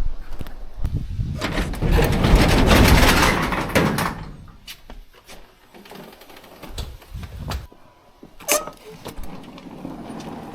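A door sliding open with a loud rumbling scrape for about two seconds, followed by scattered knocks and clicks.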